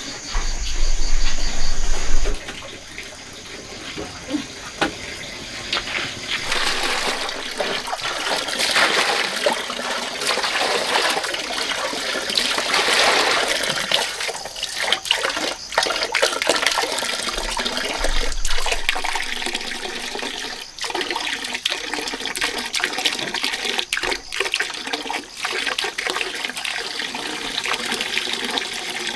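Water being scooped and poured with a plastic dipper, splashing into plastic basins, with scattered sharp knocks of the containers. A brief low rumble comes at the start.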